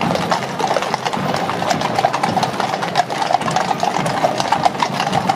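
Many horses walking on a wet paved street, their iron-shod hooves making a dense, irregular clip-clop.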